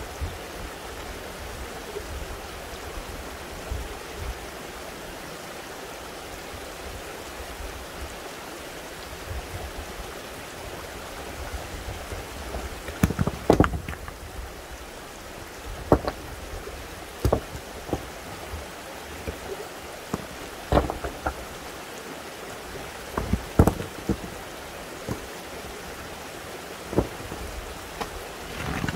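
Steady rush of running water, with a series of sharp knocks starting about halfway through.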